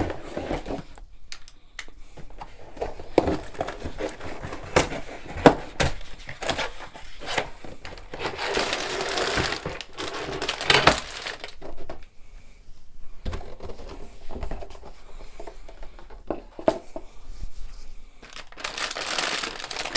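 A LEGO set's cardboard box being opened and its packaging handled: irregular crinkling, tearing and rustling with scattered clicks and knocks, densest about eight to eleven seconds in and again near the end.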